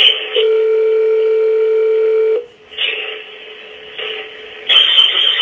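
Telephone ringback tone heard through a phone line: one ring lasting about two seconds, starting about half a second in, while the call waits to be answered. Then a quieter gap of line hiss, with a louder burst of crackling noise near the end.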